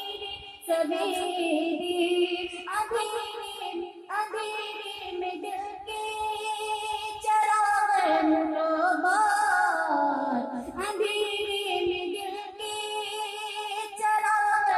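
A young girl singing a naat, an Urdu devotional song, into a microphone, with long wavering held notes.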